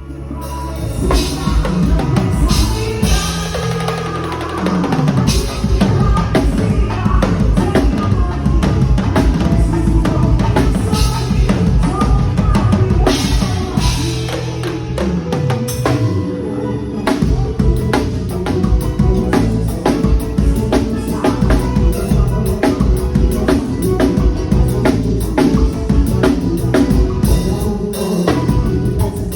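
A band playing live at a soundcheck, the drum kit up front with kick drum and snare hits over a bass line and other instruments. The low end drops out briefly about halfway before the full groove comes back.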